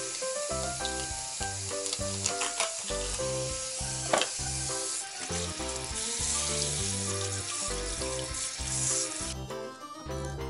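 Background music with the steady hiss of a kitchen tap running into a stainless-steel sink while a fish is rinsed, with a few light clicks. The water sound cuts off about nine seconds in, leaving only the music.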